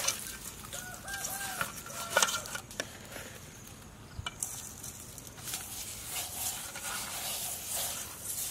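Coarse salt being rubbed by hand over fish scales in a metal bowl: gritty scraping with sharp clicks, the loudest a little past two seconds. A chicken clucks several short times about a second in, and again later.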